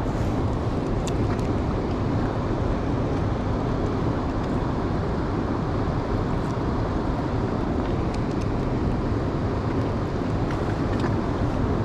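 Steady rushing of water pouring out of a dam's spillway outlet into the river, an even low rumble that does not change. A few faint ticks sit on top of it.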